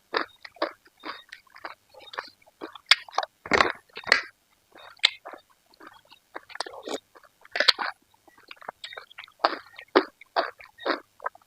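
Close-up chewing of pekaa (Indian trumpet tree pod) with chili paste: irregular wet chewing and mouth noises, with a few louder ones about three and a half, four, seven and a half and ten seconds in.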